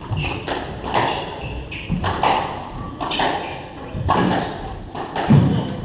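Squash rally: the ball cracking off racquets and the court walls roughly once a second, echoing in the enclosed court, with footsteps and shoe squeaks on the wooden floor between shots. The loudest hit comes near the end.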